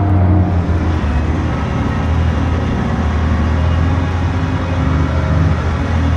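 Heavy diesel bed truck engine running steadily with a deep, even drone.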